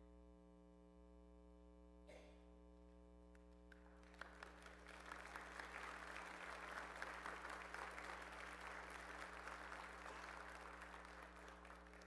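Congregation applauding. The clapping starts about four seconds in, swells, then slowly dies away near the end.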